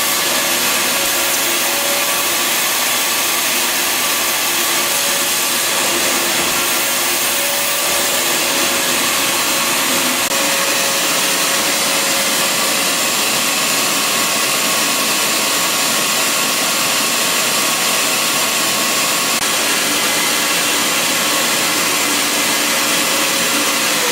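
BISSELL Garage Pro wet/dry shop vacuum running on suction: a loud, steady rush of air with a motor whine.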